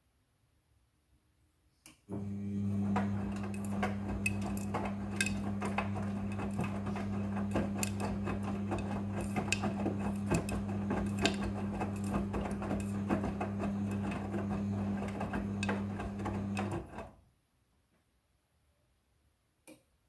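Midea front-loading washing machine turning its drum. About two seconds in the motor starts with a steady hum, and the wet load tumbles for around fifteen seconds, clicking and clinking against the steel drum. Then the drum stops: one tumble turn of the wash cycle.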